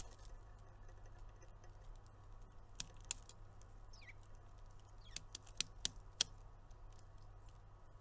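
Faint sharp taps and clicks of birds at backyard feeders, a pair about three seconds in and a quick cluster of about four between five and six seconds in, with a short high falling note about four seconds in, over a low steady hum.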